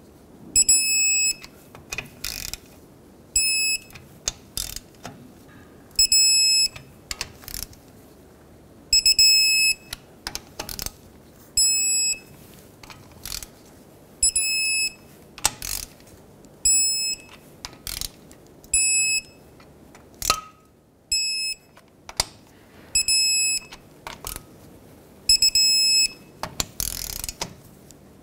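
Digital torque wrench beeping in short bursts about every two to three seconds as each differential cover bolt reaches its 33 ft-lb setting, with sharp clicks in between.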